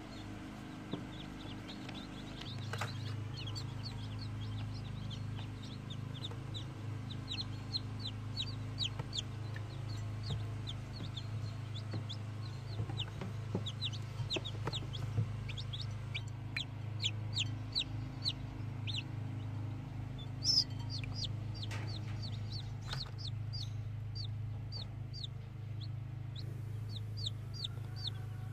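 Chicks peeping: many short, high, falling peeps in quick succession, with a steady low hum underneath.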